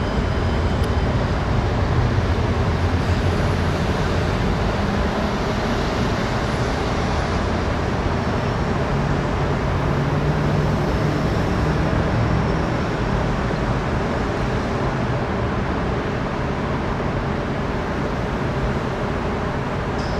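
MPI MP36PH-3C diesel locomotive's EMD 16-645 two-stroke V16 prime mover working as it pulls a commuter train away from a station: a steady low diesel drone, its note rising about nine seconds in.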